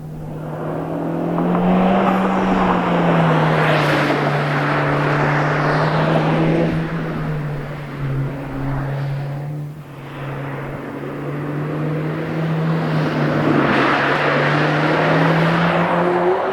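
2022 Honda Civic Si's turbocharged 1.5-litre L15B7 four-cylinder and exhaust heard from outside as the car drives past. A steady engine drone swells to a peak a couple of seconds in, dips around the middle, and rises again near the end.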